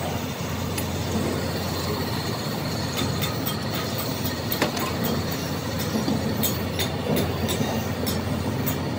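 Electric motor driving a donkey piston water pump on a test bench, running with a steady mechanical clatter and scattered clicks.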